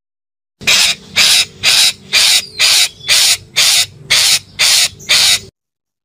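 Red-breasted parakeet (betet) giving a run of ten harsh, grating calls at about two a second. The calls start about half a second in and stop abruptly near the end.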